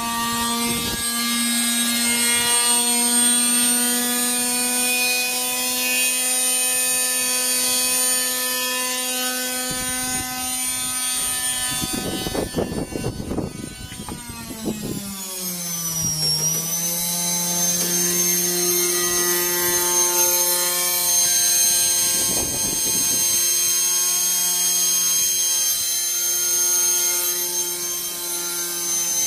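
Washing machine running in its spin cycle with a steady motor whine. About halfway through there is a few seconds of rough, rattling noise, then the whine drops to a lower, steady pitch as the drum speed changes.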